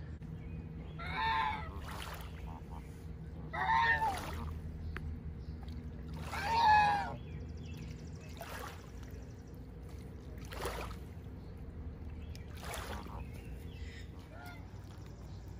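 Geese honking: three loud honks in the first seven seconds, then fainter ones about every two seconds.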